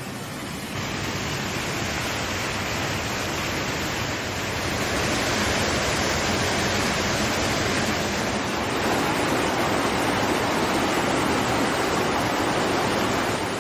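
Waterfall rushing: a steady noise of falling water, growing a little louder about a second in and again around five seconds in.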